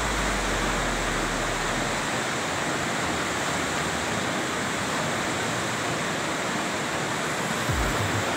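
Lohit River rapids rushing over rocks in a steady, dense wash of white-water noise. A low rumble underneath fades out about two seconds in.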